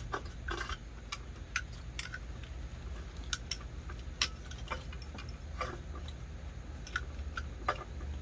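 Irregular light clicks and taps of metal parts being handled as a throttle body is slid over the intake manifold studs onto its new gasket, with a steady low hum underneath.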